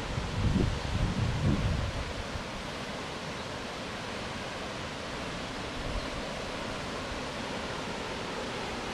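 Waterfall rushing, a steady even hiss of falling water. Wind buffets the microphone in low gusts for the first couple of seconds.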